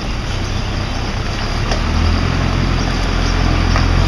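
Fire truck's diesel engine running, getting louder and deeper about two seconds in as the truck moves off, over a steady background hiss.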